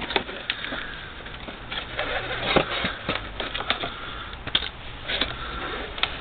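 Rigid plastic heater-matrix housing being wrenched apart by hand, giving irregular clicks, creaks and knocks as the stuck halves flex and shift.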